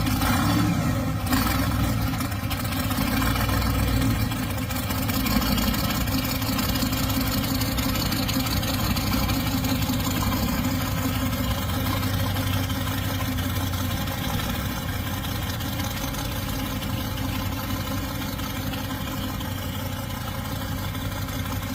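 Small-block Chevrolet V8 engine of a front-engine Volkswagen Beetle running steadily.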